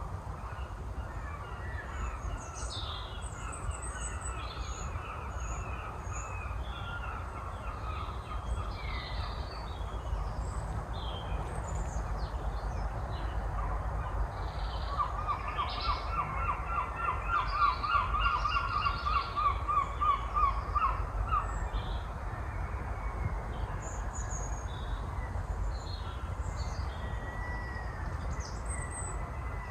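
Woodland birds calling and singing, with many short chirps throughout. In the middle comes a rapid run of evenly repeated notes lasting several seconds, the loudest sound, over a steady low rumble.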